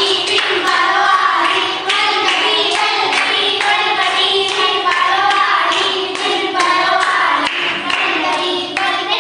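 A group of girls singing together while clapping their hands in a steady rhythm.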